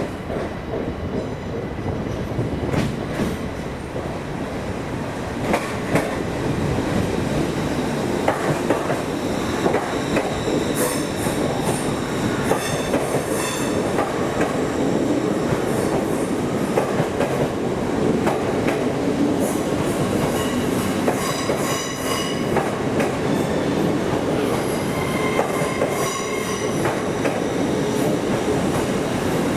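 Passenger train moving slowly through the station, its wheels squealing in high, on-and-off tones over a steady rumble, with clicks from the wheels passing over rail joints.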